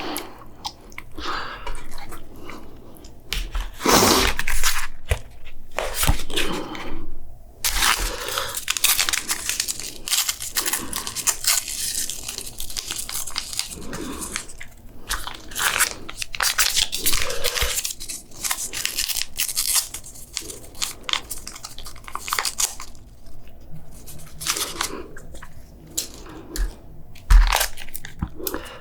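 Close-miked ASMR eating: a person biting and chewing food in irregular bouts, with short pauses between.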